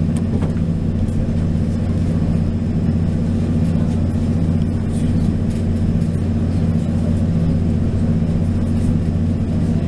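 Steady running noise inside a Taiwan Railway DR2900/3000-series diesel railcar at speed: a constant low diesel engine drone over the rumble of wheels on track.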